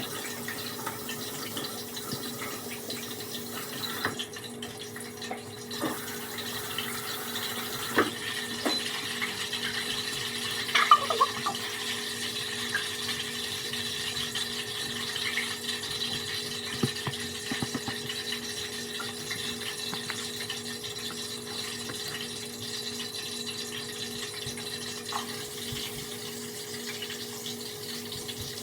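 Chicken frying in hot oil: a steady sizzling hiss over a constant low hum, with a few light knocks, the loudest about eight and eleven seconds in.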